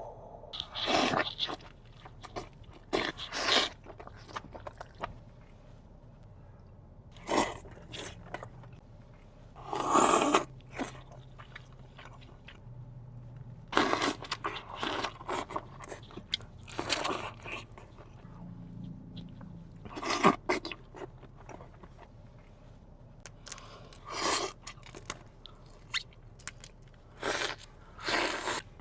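Close-miked eating of a seafood boil: crunchy bites and wet chewing that come in short bursts every few seconds.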